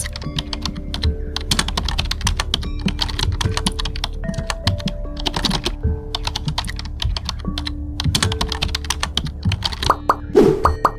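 Rapid, irregular clicking like computer-keyboard typing over background music with held notes.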